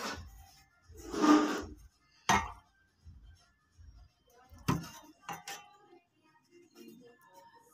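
Steel meat-cleaver blade handled on a tabletop: a short scrape about a second in, then a few separate clinks and knocks as it is laid down and picked up, one with a brief metallic ring.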